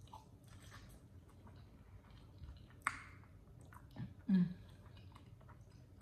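Close-miked chewing of a mouthful of chili cheese fries: soft wet mouth clicks and smacks. There is a sharp click about three seconds in and a brief low hum of the voice a little after four seconds.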